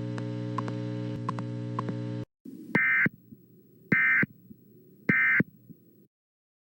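A steady droning hum from the alert's background cuts off about two seconds in. Then come three short electronic data bursts about a second apart over a low static rumble: the Emergency Alert System end-of-message (EOM) tones that close the alert.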